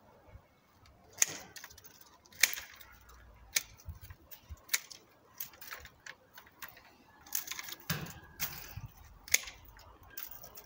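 Hand pruning shears (secateurs) snipping through peach tree branches: about ten sharp snips at irregular intervals.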